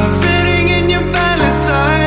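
Background music: a pop song with a sung vocal line over sustained bass and chords, the harmony changing about one and a half seconds in.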